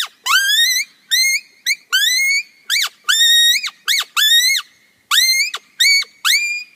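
An open-reed predator howler call blown in a quick series of short, high yelps, about two a second, each note rising in pitch and then falling off sharply at its end, some held a little longer.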